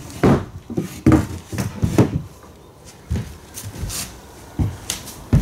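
Lumber being handled on a plywood work table: a string of irregular wooden knocks and thuds, about nine in all, as the boards are moved and set in place.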